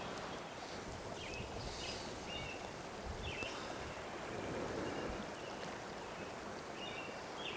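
River water running steadily over rocks, an even rushing hiss, with a few short high chirps over it.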